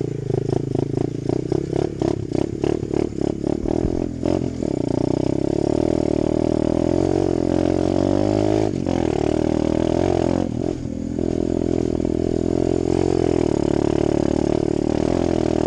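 Apollo 125cc dirt bike's four-stroke single-cylinder engine pulling under load while ridden. It runs choppy and pulsing for about the first four seconds, then settles into steady, high revs with a wavering pitch. The revs dip briefly twice near the middle.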